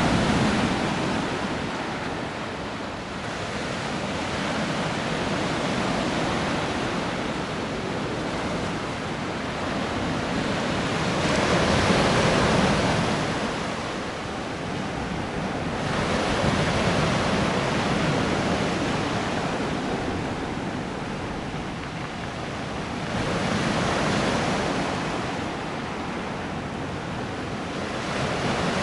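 Sea surf: waves breaking and washing up the shore in slow swells every several seconds, the loudest about twelve seconds in.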